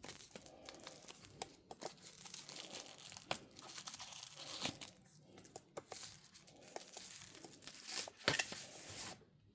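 Packaging being unwrapped by hand: plastic and paper crinkling and tearing, with scattered small clicks and crackles. It stops shortly before the end.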